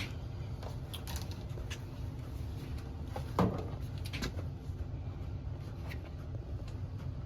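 A steady low hum with a few light clicks and knocks scattered through it, from handling tools and parts while cleaning an AC unit's condensate drain trap.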